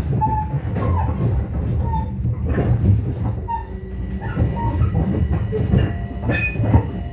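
Long Island Rail Road commuter train running at speed, heard inside the car: a steady low rumble with a rapid, uneven clatter of wheels over rail joints and switches.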